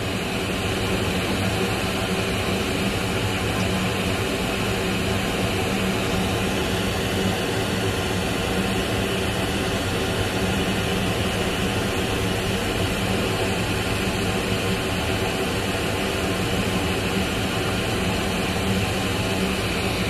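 Soldering fume extractor fan running: a steady rush of air with a low hum.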